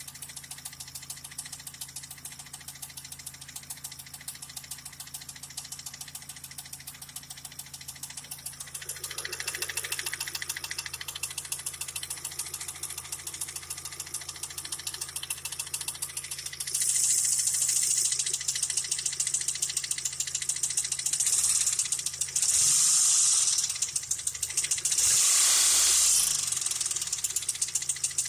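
Chevrolet Lanos 1.5 four-cylinder engine running with a steady, even knock from inside the engine. About halfway through the engine is revved several times and the knocking and rattle get louder.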